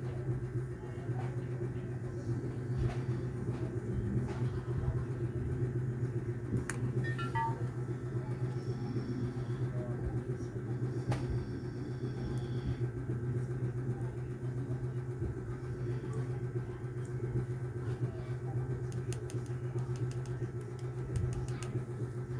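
Steady low hum running throughout, with scattered faint clicks and taps.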